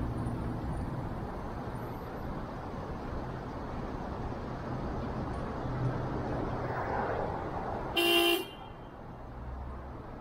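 Steady traffic and road noise in city streets, with one short car horn honk about eight seconds in.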